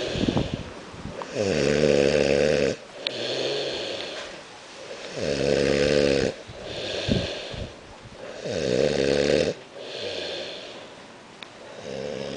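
A man snoring in his sleep, a long buzzing snore about every three seconds with a breathy hiss between the snores. Three full snores, with a fourth starting at the end.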